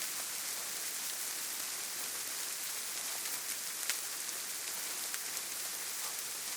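Steady rain falling: an even hiss with scattered small drop ticks, and one louder drop about four seconds in.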